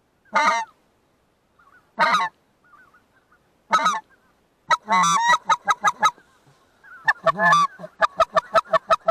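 Goose honking: three single loud honks about a second and a half apart, then a quick run of calls, then a faster run of short clucking calls near the end.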